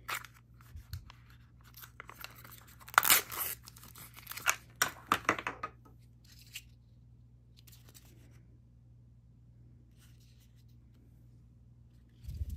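Thin plastic packaging crinkled and torn open by hand, in a run of sharp crackles from about two to six seconds in. A low thump comes near the end.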